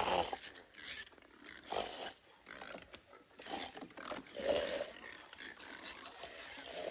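A group of pigs grunting and squealing in irregular bursts, loudest at the start and again about four and a half seconds in.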